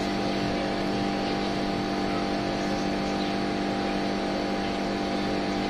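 Steady mechanical hum of a running motor: a few fixed tones over a low rumble, unchanging in level.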